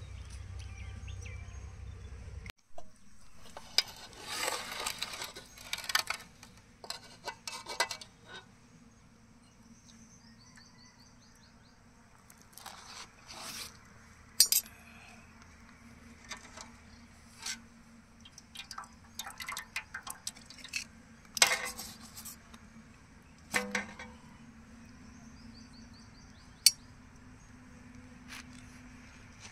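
Scattered clinks and taps of dishes and utensils, a few of them ringing briefly, with a low steady hum that stops suddenly a couple of seconds in.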